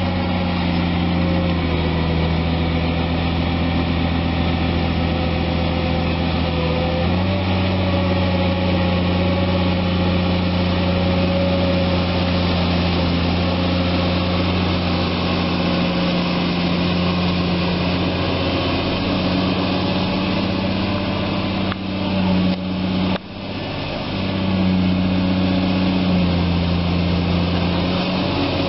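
Caterpillar long-reach excavator's diesel engine running steadily under working load, its note stepping up slightly about a quarter of the way in, with a couple of brief drops about three quarters of the way through.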